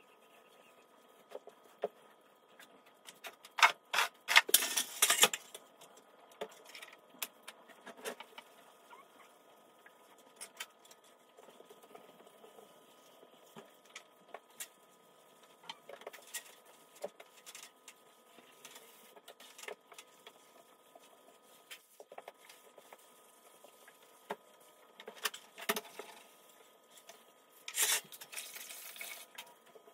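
Hand-cleaning noises in a kitchen: scattered light knocks, clicks and rubbing as cabinets and worktop are wiped and an aluminium stepladder is shifted and climbed. Two louder bursts of scrubbing or rustling come about four seconds in and near the end, over a faint steady hum.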